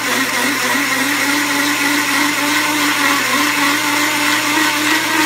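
Large hole saw in a drill press at its slowest speed, cutting through 1/4-inch steel plate: a steady cutting noise with a wavering mid-pitched whine. The press's drive belts are a little loose.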